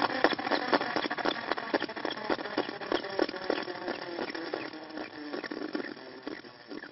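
Car wheel and tyre spinning and slowing down: a rapid rhythmic ticking and rattling with a steady hum underneath, the ticks spreading out and the sound fading as the wheel coasts toward a stop.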